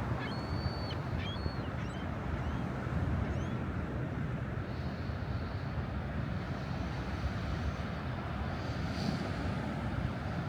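Steady wind rush on the microphone over beach surf, with a few short, high whistled bird calls in the first three seconds.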